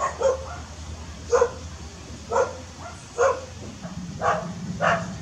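A dog barking repeatedly, short barks about once a second.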